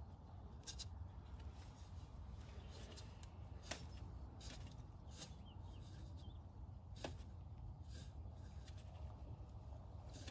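Faint scattered clicks and rubbing of hands gripping and twisting a spin-on oil filter, tightening it by hand the last three-quarter to one turn past snug, over a low steady background rumble.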